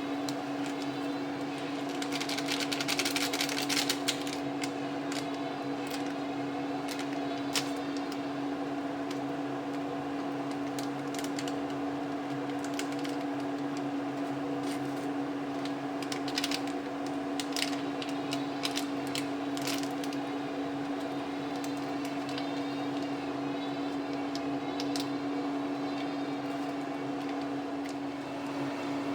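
Pot of water boiling on a cooker: a steady hum with scattered clicks and crackles, densest about two to four seconds in and again around sixteen to twenty seconds in.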